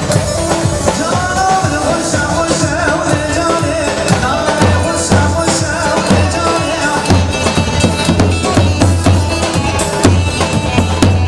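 Kurdish wedding dance music played live, with a davul bass drum beating steadily under the melody.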